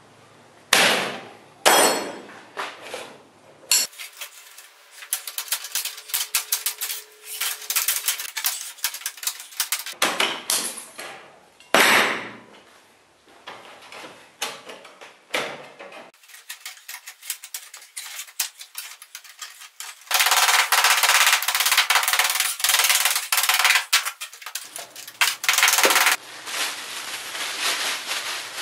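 Sharp knocks and clangs of hard objects being struck, in several abruptly cut stretches. Rapid clicking and scraping fill the gaps, and a dense scraping noise runs from about two-thirds of the way through.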